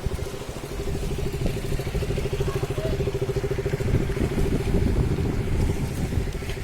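A motor vehicle engine, most like a motorcycle, running steadily with a low rumble.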